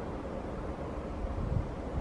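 Low rumble of an approaching Bombardier double-decker electric train, mixed with wind buffeting the microphone, with a brief low bump about one and a half seconds in.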